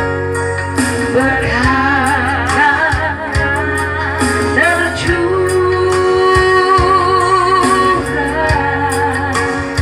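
Music with a singing voice: a held, wavering sung melody over steady instrumental backing with a regular beat.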